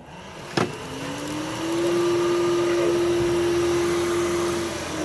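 A Samsung POWERbot robot vacuum's suction motor starting with a click, its whine rising in pitch over about a second and holding steady, then starting to drop near the end as it winds down.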